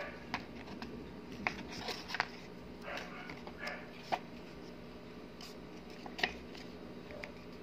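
Handling noise from a fountain pen and its plastic case: scattered sharp plastic clicks and brief scrapes, irregular, about half a dozen clear clicks, over a faint steady hum.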